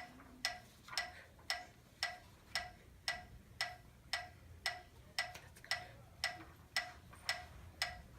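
A steady, evenly paced ticking, about two sharp ticks a second, each with a brief pitched ring, like a clock.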